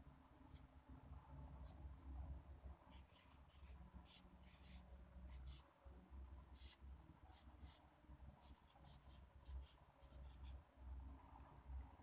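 Pen scratching on paper in short, irregular strokes, as if writing, over a faint low hum.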